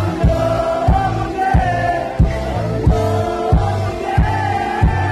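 Live rock band playing loud: a held, gliding sung vocal line over guitars and bass, with a steady kick drum beat about every two-thirds of a second.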